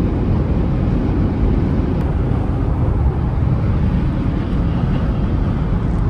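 Steady, low road and tyre noise of a Toyota 4Runner driving at highway speed, heard inside the cabin.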